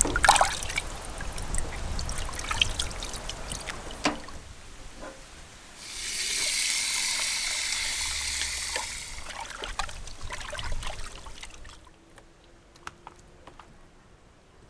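Water splashing as raw chicken pieces are rubbed and rinsed by hand in a pot, then a tap running steadily onto them for about three seconds in the middle. Near the end only faint scattered handling taps.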